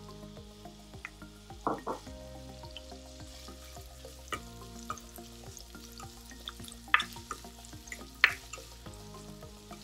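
Chopped onion sizzling in hot oil in a nonstick kadai, stirred with a plastic spatula that scrapes and knocks against the pan several times.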